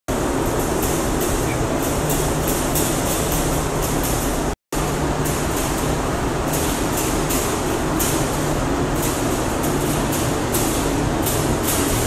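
Paint spray gun spraying a coat onto a boat hull: a loud, steady rush of air with a low hum underneath. It cuts out briefly about four and a half seconds in.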